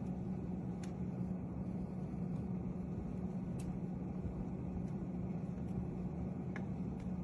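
Steady mechanical hum with a low, even tone, as from a running motor or fan, with a few faint clicks.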